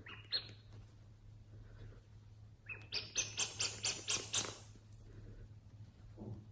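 Slime being squeezed and poked, with a quick run of sharp crackling pops, about five a second, in the middle.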